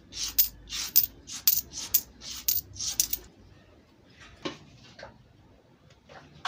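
Metal coins, Kenyan shilling coins, clinking and sliding against each other on a wooden tabletop as they are pushed and counted by hand, about two clinks a second, stopping about three seconds in.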